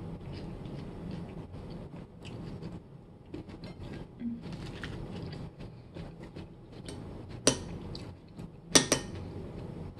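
Small handling clicks and rustles from food being picked over on a plate. A metal spoon then clinks and scrapes against a bowl, with two sharp clinks about a second apart near the end.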